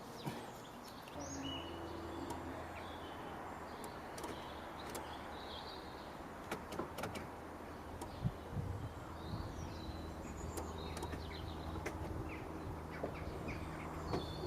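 Birds chirping now and then over a steady low hum that starts about a second in, with a few small clicks.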